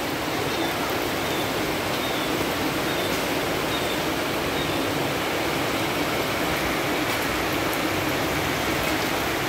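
Heavy rain falling steadily: a dense, even hiss of downpour on leaves and a tiled rooftop.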